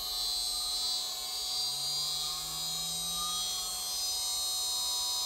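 A 2.2 kW water-cooled CNC spindle running under its VFD, a steady high whine made of several high tones, with a fainter tone rising in pitch in the middle as the speed is turned up. It is being run without cooling water through it.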